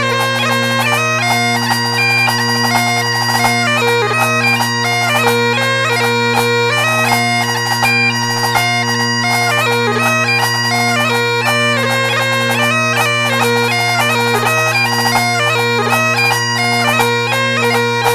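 Great Highland bagpipes playing a tune: the drones hold one steady chord underneath while the chanter plays a quick-moving melody over it.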